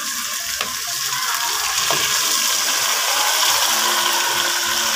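Raw pork pieces sizzling as they go into hot oil with sautéed onion and garlic, the sizzle growing a little louder about a second in. A few sharp clicks of a metal spoon against the plate and pot.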